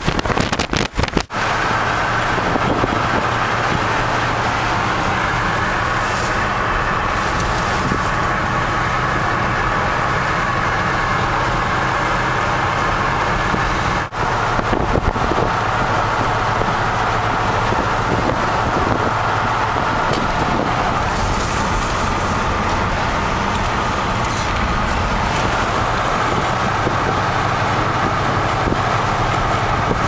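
Steady road noise of a car being driven, heard from inside the car, with a low engine hum under the rush of tyres and wind. The sound breaks off briefly about a second in and again about halfway, where the footage is cut.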